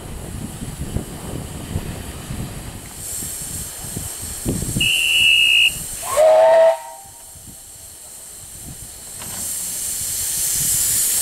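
Bagnall 2-4-0 tank engine's steam whistle: a short shrill blast about five seconds in, then a louder, lower whistle blast that rises slightly and cuts off suddenly. Near the end a steam hiss builds and grows louder. Wind rumbles on the microphone in the first half.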